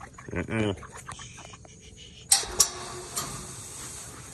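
A chicken gives a short squawk near the start, then a sudden clatter a little over two seconds in, followed by steady scuffling and rustling.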